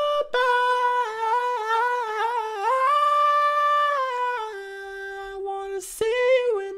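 A voice humming a wordless tune through hard Autotune pitch correction: each note is held dead flat and snaps in steps to the next. There is a short hiss about six seconds in.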